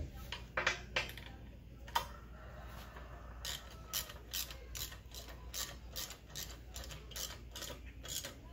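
Socket ratchet wrench clicking as nuts are run down onto the mounting bolts. A few scattered clicks at first, then a steady run of clicks, about three a second.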